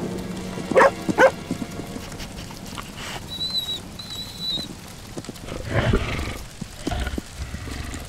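Animal calls from a cartoon soundtrack: two short loud cries about a second in, then two high, steady whistle-like notes, with scattered softer noises later.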